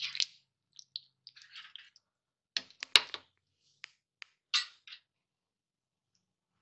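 Spatula stirring a thick pea-and-mushroom curry in a non-stick pan: scattered short scrapes and clicks against the pan, with one sharp knock about three seconds in. The sounds stop about five seconds in.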